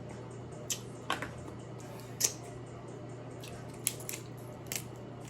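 Shellfish shells cracking and snapping as meat is picked out of them by hand: about six sharp, separate crackles over a low steady hum.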